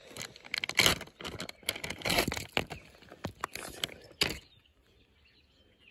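Plastic bait packaging being handled close to the microphone: a quick run of crackles and scrapes that stops a little after four seconds in.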